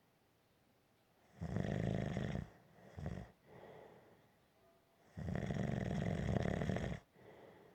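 A person snoring steadily: two long, loud snores, about a second and a half and five seconds in, each followed by a softer breath.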